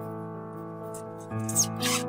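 Background music of held, evenly pitched notes, with a couple of short scraping noises near the end.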